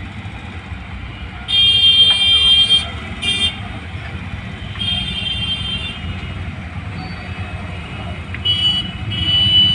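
Handheld electric marble cutter run in short bursts of about a second, each a high, steady motor whine over a grinding rumble. This is the 'ghar ghar' noise it has made since new carbon brushes were fitted.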